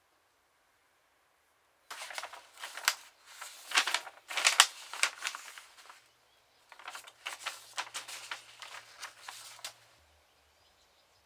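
Loose sheets of graph paper rustling as they are lifted, leafed through and shuffled by hand, in two spells of crisp handling noise, the first about four seconds long and the second about three.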